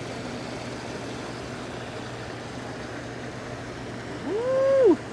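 Hot tub jets running: a steady rush of churning water over a low, even hum. Near the end, a short, loud tone slides up, holds briefly and drops back down.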